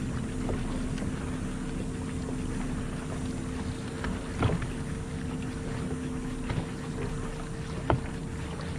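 Minn Kota Ultrex electric trolling motor on a bass boat running with a steady low hum, under wind and water noise. Two short knocks, about four and a half seconds in and near the end.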